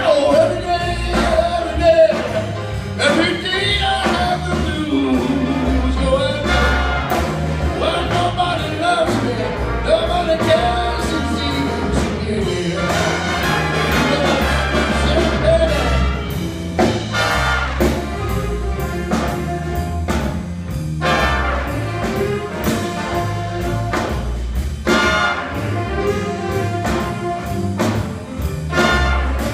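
Live big band playing a blues, with saxophones, trumpets, trombones, piano and drums. A male singer carries the first half; later the band plays on its own with sharp brass accents.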